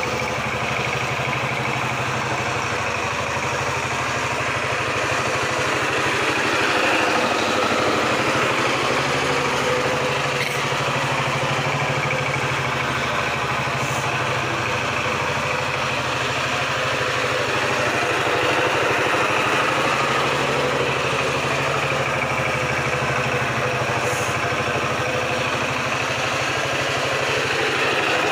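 Kamco two-wheel power tiller's single-cylinder diesel engine running steadily as the tiller is driven across a layer of straw.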